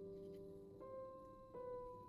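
Quiet, slow piano background music, single notes held and ringing, with a new note struck twice in these two seconds.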